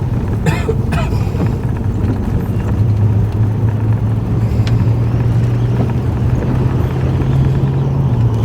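Moving car heard from inside the cabin: a steady low engine and road drone with rumbling tyre noise, the hum growing a little stronger about three seconds in.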